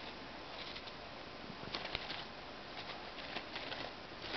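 Duckling pecking and tugging at a crumpled paper tissue on a laptop keyboard: soft rustling and light taps in short, irregular clusters over a steady hiss.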